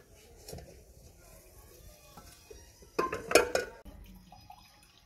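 Steel kitchen utensils clinking as a pot and plate are handled, with a loud clatter of metal on metal about three seconds in.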